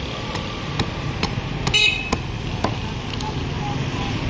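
Cleaver chopping fish on a wooden chopping block: a string of sharp knocks, about two a second, over steady street traffic noise. A brief high-pitched toot comes about two seconds in.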